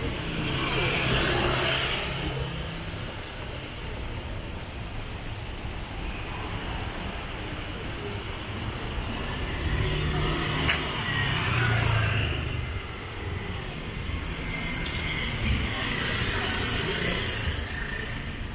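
City street traffic: a steady engine rumble, with cars passing close by about a second in, again around ten to twelve seconds in and once more near the end.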